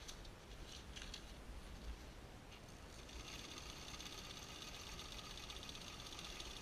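Old Pfaff 160 sewing machine running at an even speed, stitching, starting about three seconds in with a rapid, steady whir and a constant hum. A few short clicks and rustles come before it.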